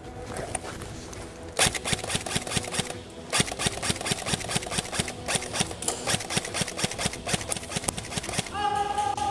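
Airsoft replica firing, a run of sharp shots repeating several times a second and starting about a second and a half in.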